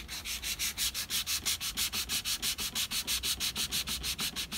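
Hand sanding of a wooden tabletop: sandpaper scraping back and forth over the boards in quick, even strokes, about six a second.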